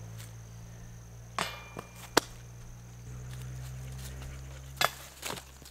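A few sharp clicks and knocks over a steady low hum. The last, about five seconds in, comes as a putted plastic golf disc reaches the metal chain basket.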